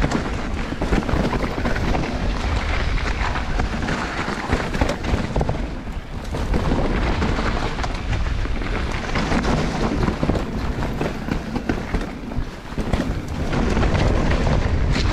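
Mountain bike ridden fast down a bike-park trail: wind buffeting the microphone over a steady low rumble of tyres on dirt and rock, with frequent knocks and rattles from the bike over rough ground.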